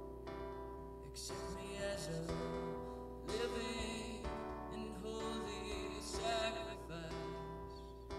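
Slow background music led by acoustic guitar, with sustained notes and changing chords.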